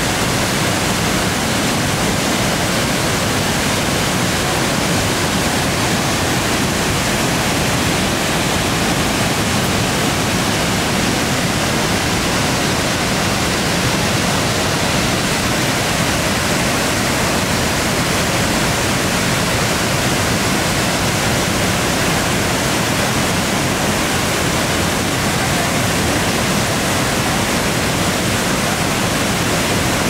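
Tegenungan Waterfall, a large single-drop fall, plunging into its pool: a loud, steady, unbroken rush of falling water.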